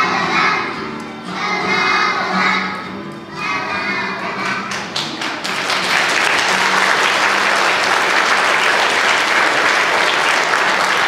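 Young children singing together with a musical accompaniment, ending about five seconds in, then an audience applauding.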